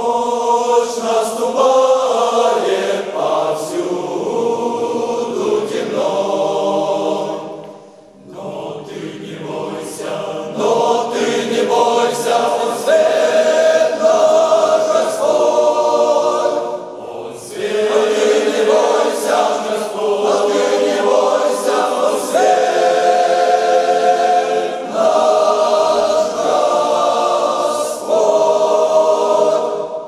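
Large men's choir singing a hymn in sustained phrases, with brief breaks about eight and seventeen seconds in.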